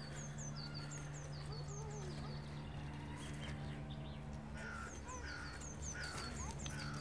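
Small songbirds singing, repeating short high two-note phrases over and over, with a few harsher bird calls toward the end. A steady low hum runs underneath.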